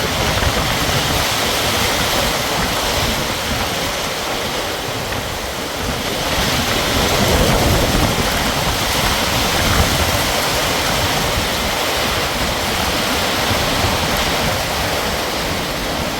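Heavy monsoon rain pouring down steadily, with wind buffeting the microphone. It grows louder for a few seconds in the middle.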